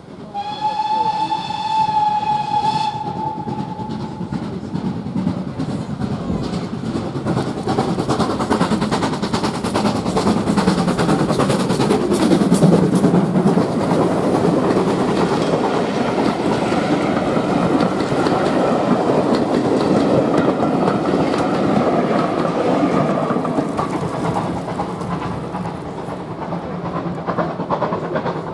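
A steam locomotive sounds its whistle once, one steady note held for about three seconds, then the steam train passes close by, the noise of the locomotive and its carriages on the rails growing to loudest about halfway through and easing off towards the end.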